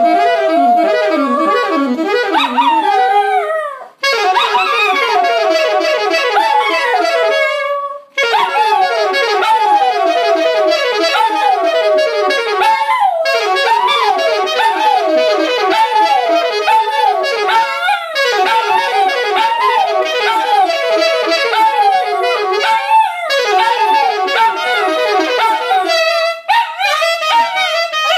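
Alto saxophone playing a blues line in phrases of quick runs, with a dachshund howling along in wavering, sliding wails. The playing breaks off briefly between phrases, about every four to five seconds.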